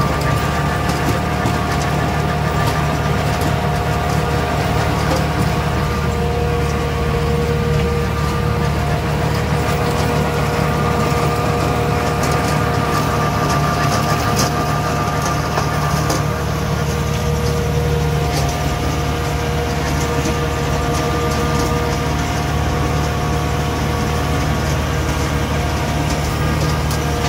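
Kubota tractor engine running steadily under load while driving a Dondi rotary ditcher, heard from inside the cab: a low engine hum with a steady whine over it, which eases off for a few seconds midway, and scattered light ticks.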